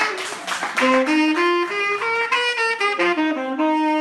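Saxophone playing a slow melody of single notes that step up and down, settling near the end on a longer held note.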